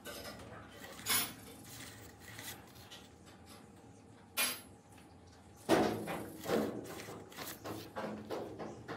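Irregular knocks and clatters of hard objects being handled and set down. There is a sharp knock about a second in and another a little after four seconds, then a louder run of knocks from just past halfway on.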